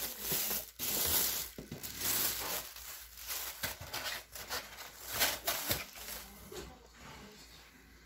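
Thin plastic wrapping crinkling and rustling in irregular bursts as it is handled and pulled off a round lamp, with some brushing against cardboard. It dies down near the end.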